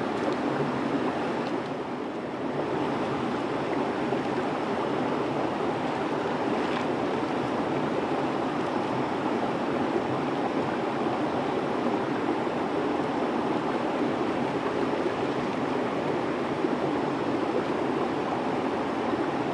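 Shallow river water running steadily over rocks, an even rushing noise that holds without a break.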